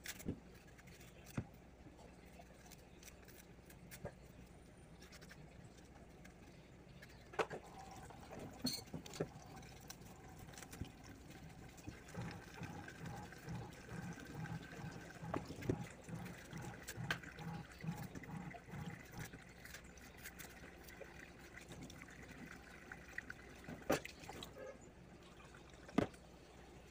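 Kitchen knife peeling a green plantain over a steel sink: quiet scraping and cutting with a few scattered clicks and taps.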